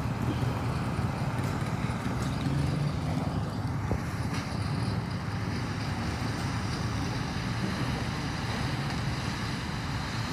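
Portable concrete mixer's engine running steadily with a low, even drone.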